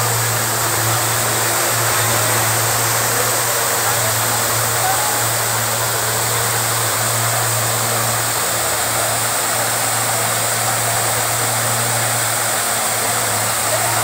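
Park fountain's jets spraying and falling into the basin: a steady rush of splashing water, with a steady low hum underneath.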